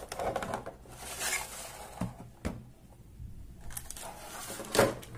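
Unpacking noise: a clear plastic blister tray crackling as a radio-control transmitter is lifted out of it, with a few sharp knocks and a loud clack near the end.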